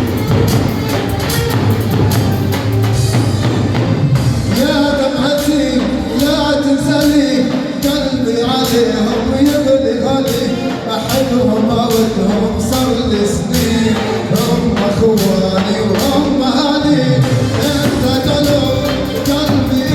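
Arabic wedding song played live: a steady percussion beat, joined about four and a half seconds in by an ornamented melody line.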